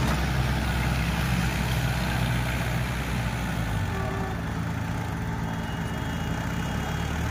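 Diesel engines of a John Deere 5210 and a Mahindra 555 tractor running under load as the two pull against each other. The low, steady engine note shifts about four seconds in.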